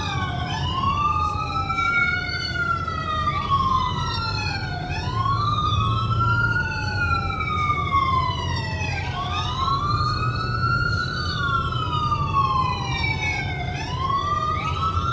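Wailing emergency-vehicle siren that rises and falls slowly, about one full cycle every four and a half seconds. It is heard inside a moving car over steady low road rumble.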